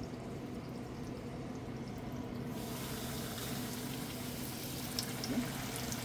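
Fish frying in a pot of hot oil: a steady sizzle that turns sharply louder and hissier about two and a half seconds in as floured fish goes into the oil, with a few small pops near the end.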